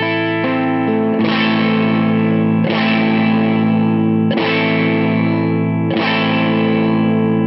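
Electric guitar, a Fender Stratocaster Custom Shop, played through a DOD Overdrive Preamp 250 pedal with the overdrive on: four chords struck about a second and a half apart, each left to ring out.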